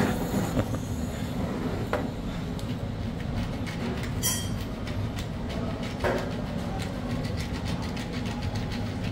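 A large hand-twisted spice mill grinding, giving a long run of rapid rough clicks over a low steady hum.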